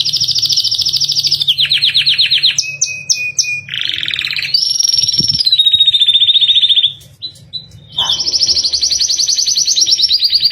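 Domestic canary singing a fast, varied song of rolling trills, one trill after another, each at a new pitch and pace. The song breaks off briefly about seven seconds in, then resumes with another long trill.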